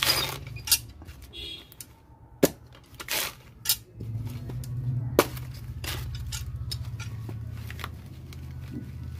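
Dry coconut husk cracking and tearing as a metal tool pries it open, with several sharp snaps, then the fibrous husk being pulled apart by hand. A steady low hum runs underneath and grows louder about halfway through.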